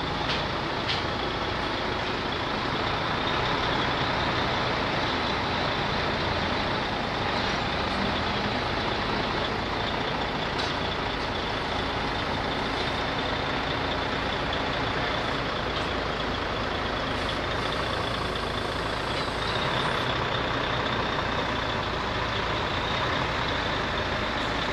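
A steady running engine or machine, with a faint high whine over it.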